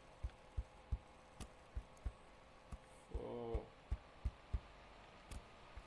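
Dull low thumps, about three a second, with a short hummed sound from a person about three seconds in.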